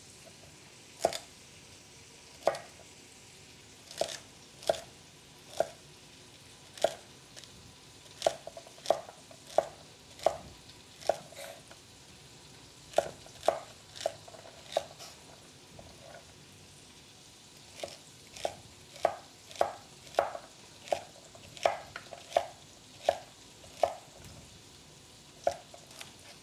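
Kitchen knife chopping vegetables on a cutting board: single sharp chops at an uneven pace, in runs with a pause of a couple of seconds midway. A pan sizzles faintly underneath.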